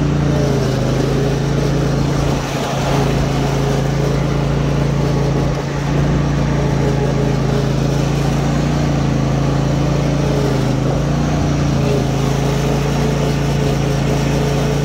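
25-horsepower Briggs & Stratton Extended Life Pro EFI engine of a Snapper 300Z zero-turn mower running steadily, throttled up, with the cutting blades engaged while the mower drives.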